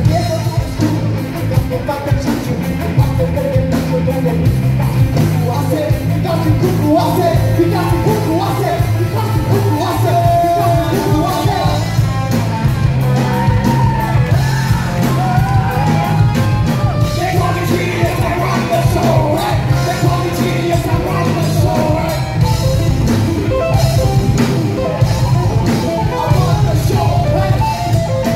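Live rap-rock band playing a song: electric guitar, bass guitar and drum kit, with a vocalist singing over the band.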